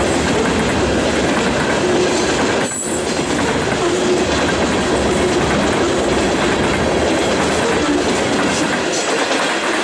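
Covered hopper cars of a grain train rolling past at track speed: a steady rumble and clatter of steel wheels on the rails, with faint intermittent squealing tones from the wheels.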